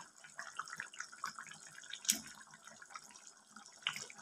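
Spiced curry gravy boiling in a metal kadai: faint, irregular bubbling and popping, with a couple of sharper pops about two seconds in and near the end.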